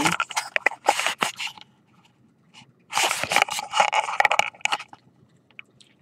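Handling noise close to the microphone: rustling and scraping as a handheld meter is moved about, in two bursts with a quiet pause of about a second between them.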